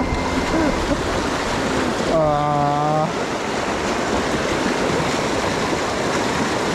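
Mountain stream rushing steadily over rocks. About two seconds in, a short pitched sound lasting about a second, like a brief hummed note, rises above the water.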